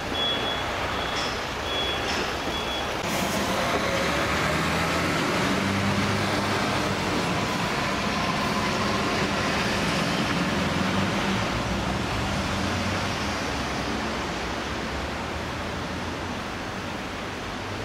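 A vehicle's reversing alarm beeps about once a second and stops about three seconds in. A heavy vehicle's engine then runs, its pitch shifting, over steady street noise.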